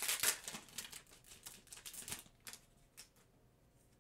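A Pokémon Brilliant Stars booster pack's foil wrapper crinkling as its stack of trading cards is pulled out, then the cards slid and flicked through by hand in quick light snaps. It thins out and fades about three seconds in.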